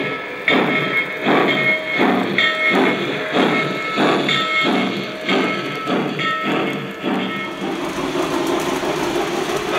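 Steam-locomotive chuffing from the RailSounds sound system of a Lionel Lionmaster NYC J3a Hudson model train, an even beat of about two chuffs a second. Near the end the beat stops and a steadier hiss takes over.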